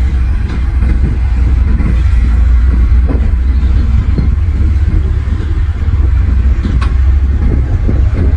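Heavy diesel machine running, most likely a bulldozer, with a loud, steady low rumble. Irregular clanks and knocks run through it, with a couple of sharper clicks near the end.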